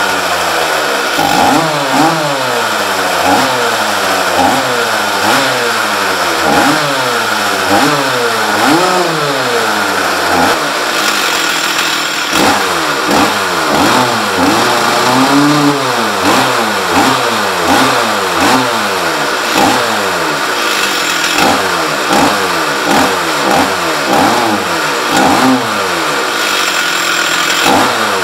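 Stihl 044 two-stroke chainsaw engine running and revved up and down over and over in quick throttle blips, the blips coming faster about halfway through. The saw has a freshly rebuilt top end with a new piston, and is at the stage of its carburettor being set up.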